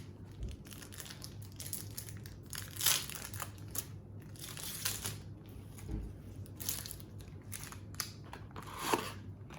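Plastic wrapping on a Pokémon trading card box being crinkled and torn open by hand: irregular crackling and rustling, loudest about three seconds in and again near the end.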